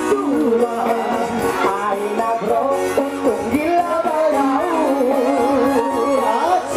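Live dangdut-style band music with a female singer's ornamented, wavering vocal line over drums and instruments.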